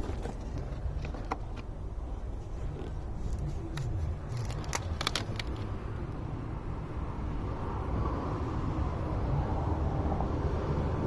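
A car engine idles with a steady low hum. There are a few sharp plastic clicks as a quart bottle and funnel are handled, then a building hiss of oil being poured through the funnel.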